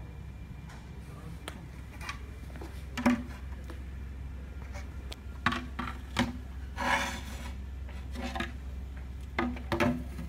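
Metal connector pieces knocking and scraping against the aluminium edge frame of a portable dance floor panel as it is handled: a handful of sharp clacks, the loudest about three seconds in, and one longer scrape a little past the middle. A steady low hum lies underneath.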